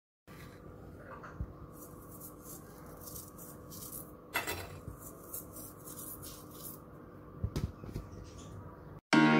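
Fingers rubbing and pinching dry, crispy bread crumbs on a plate: soft gritty rustling over a faint steady hum, with a sharp knock about four seconds in and a few small clicks near the end.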